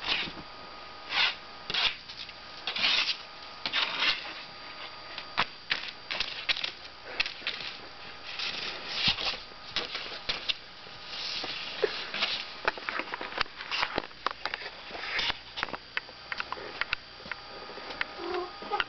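A cat's claws scratching and batting at a paper poster on a wall: irregular bursts of paper rustling and scraping, with a few sharp taps.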